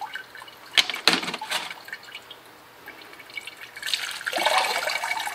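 Water poured from a plastic jug splashing over a tumbled rock and into a sieve bucket of rocks, starting about four seconds in. A few sharp clicks and drips come about a second in.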